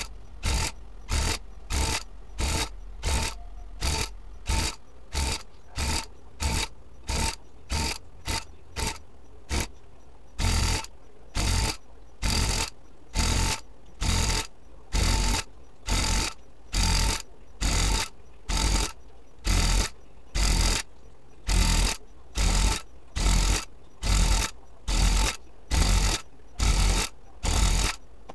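Electric tufting gun running in short spurts as it punches yarn into the rug backing, about two spurts a second. From about ten seconds in, each spurt runs a little longer and they come a little less often.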